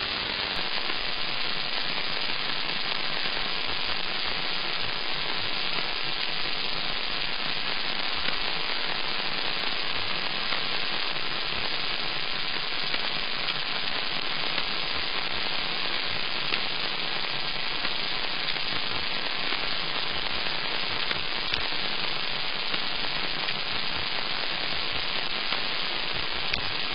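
Steady, even hiss with scattered faint low crackles and pops throughout, the noise floor of a CCTV camera's audio track.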